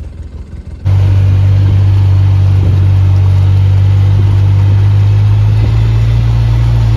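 A motor vehicle's engine running steadily at an even pitch, loud and close, cutting in abruptly about a second in.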